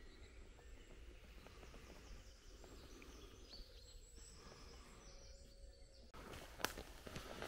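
Faint woodland ambience with distant birds chirping. About six seconds in, the sound gets louder with footsteps crunching on the path and a sharp click.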